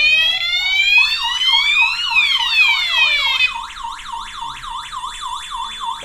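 Electronic fire alarm sounders going off after a manual call point was triggered: a slow rising-and-falling siren over a fast warbling tone. A little past halfway the slow siren stops and the sound drops to the quieter fast warble with a steady high beep, as the panel is being reset to normal.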